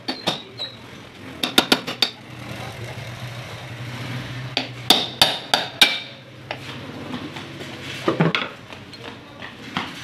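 Sharp metallic clinks and knocks from a ceiling fan's aluminium motor housing and stator being handled and taken apart, coming in several quick clusters.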